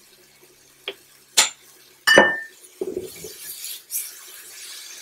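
A glass spice jar of parsley flakes knocks against the pan three times in the first two and a half seconds; the last knock is the loudest and rings briefly. The food in the hot pan is then stirred, with a light hiss and a few softer knocks.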